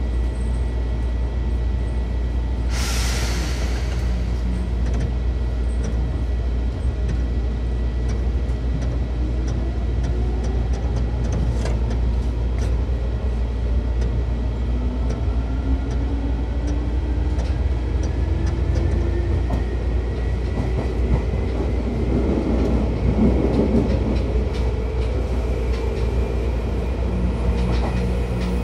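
Seibu 2000 series electric train pulling away: a short hiss of air about three seconds in, then the traction motor whine rising steadily in pitch as the train accelerates, over a constant low rumble.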